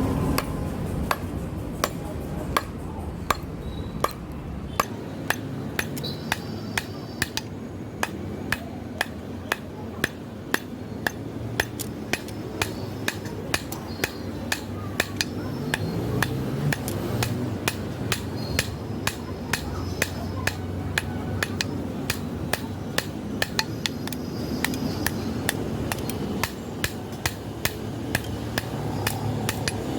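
Blacksmith's hammer striking steel on an anvil in a steady, evenly spaced rhythm of ringing blows, forging a billhook blade.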